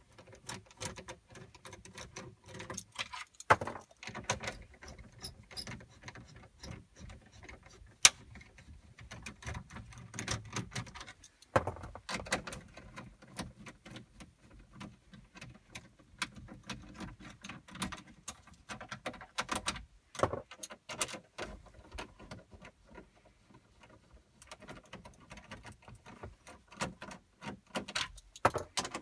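Hand socket driver backing screws out of the radio and control panel in a GMC Yukon's dash: many small metal clicks and scrapes, with a few sharper knocks, the loudest about eight seconds in.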